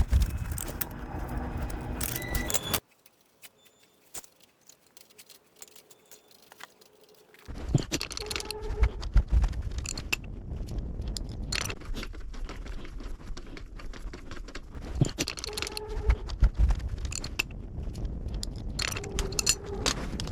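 Metal hand tools and bicycle drivetrain parts clinking, rattling and scraping during hand work. Several seconds of near silence come about three seconds in.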